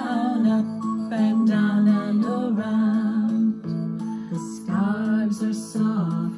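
A children's song: singing over a plucked string accompaniment.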